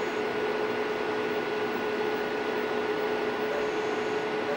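Barrel scanner club light running: a steady mechanical hum with one constant mid-pitched tone.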